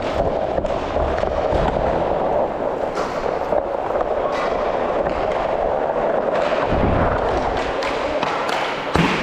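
Skate wheels rolling steadily over plastic sport-court tiles, with scattered sharp clacks of hockey sticks and a low thud about seven seconds in.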